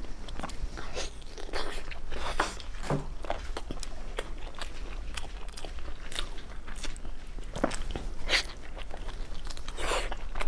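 Close-miked biting and crunching of a crispy fried food, mixed with chewing: a run of sharp crunches, several of them louder bites.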